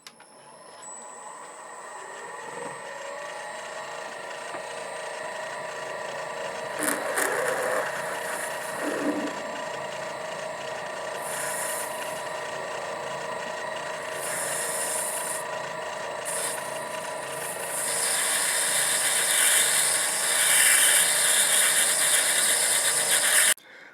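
MN-80 benchtop lathe running, its motor and spindle giving a steady whine that builds up over the first few seconds. On top comes the scraping hiss of a cutting tool turning an oiler cap, in several separate stretches and heaviest in the last few seconds. The sound cuts off abruptly near the end.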